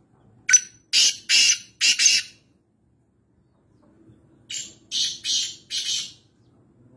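Black francolin calling: two phrases about two seconds apart, each a quick run of four or five high, raspy notes.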